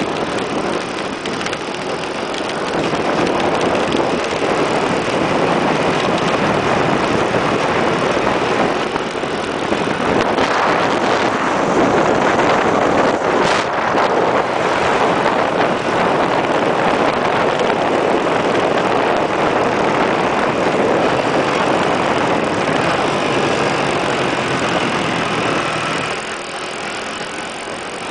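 Motorbike riding along a road: its engine runs under a steady rush of noise that swells after the first few seconds and eases off near the end.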